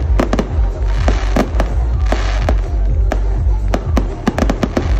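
Fireworks display: aerial shells bursting in a rapid, irregular run of sharp bangs and crackles, thinning out briefly in the middle. Loud music with deep bass plays underneath.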